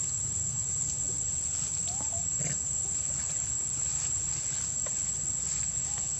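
Steady high-pitched insect drone, with a few faint short chirping calls about two seconds in and again near the end, over a low rumble.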